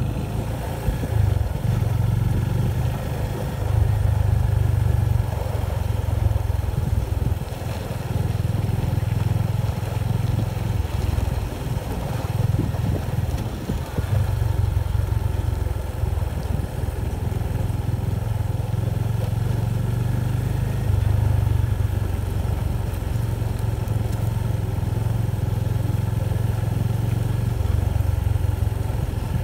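Motorcycle running on a downhill ride: a steady low rumble that swells and dips every few seconds.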